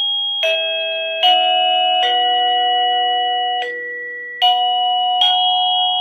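SadoTech Model C plug-in doorbell receiver playing its electronic ring-tone melody: a new note about every 0.8 s, each one held and ringing on under the next.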